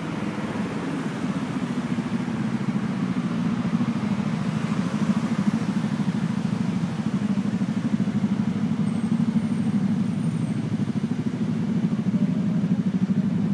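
Big Suzuki Skywave scooters' engines running at low speed close by, a steady low drone with a fine even pulse.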